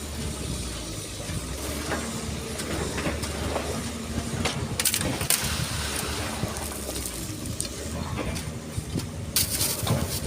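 Heavy excavator's diesel engine running steadily, with scraping and clattering of sand and stones, the sharpest bursts about five seconds in and near the end.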